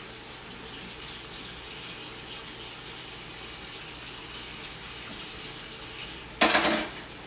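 Kitchen tap running into a sink as a steady rush of water. Near the end it turns suddenly much louder for about half a second.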